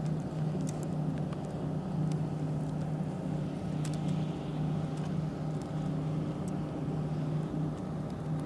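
A boat motor running steadily, a constant low hum, with a few faint ticks over it.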